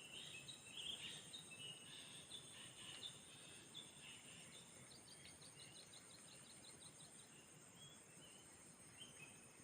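Faint outdoor ambience: a steady high insect drone with birds chirping, busiest in the first few seconds, and a quick run of about a dozen short repeated notes around five seconds in.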